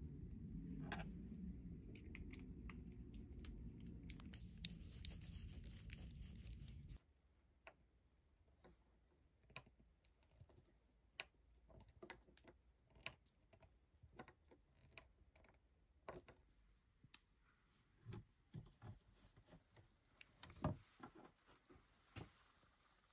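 Faint scattered clicks, taps and scrapes of hands fitting small metal bolts and nuts through raw beef rib bones and setting them down on a wooden board. A low rumble runs under the first seven seconds and cuts off suddenly.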